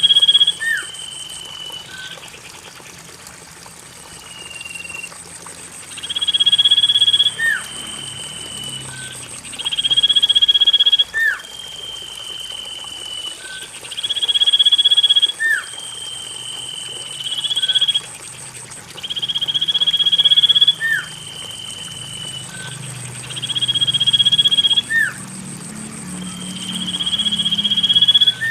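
Common iora song played as a lure: seven long, drawn-out whistles repeated about every four seconds. Each is followed by a shorter, lower note ending in a quick upward flick. A steady thin high tone runs underneath throughout.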